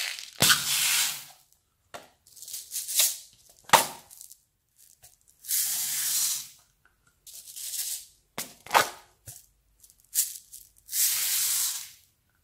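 Tiny plastic seed beads rattling in small plastic pots and pouring out onto slime in a series of short rushes about a second long, with a few sharp clicks of the pots' plastic flip-top lids.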